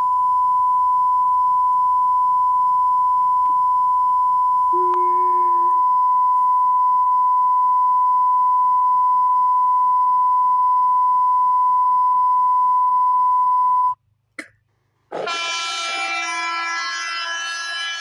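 Emergency alert tone played back: a single loud, steady, high beep held for about fourteen seconds, then cutting off. After a short gap a loud horn-like alarm made of many tones sounding together starts near the end.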